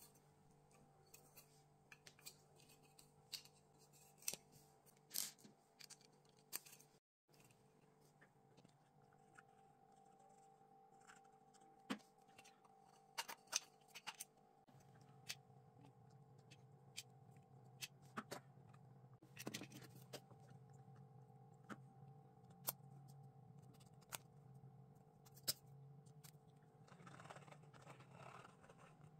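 Faint, scattered clicks and taps of 3D-printed plastic lightsaber parts being handled and fitted together, over a steady low hum.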